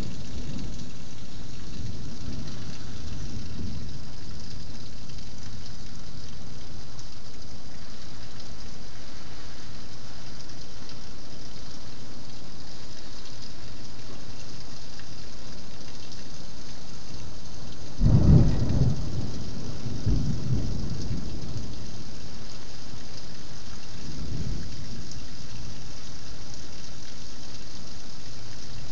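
Thunderstorm: steady rain hissing, with thunder rumbling low in the first few seconds. About 18 seconds in, a loud thunderclap breaks and rumbles on for a few seconds, and a fainter rumble follows near 24 seconds.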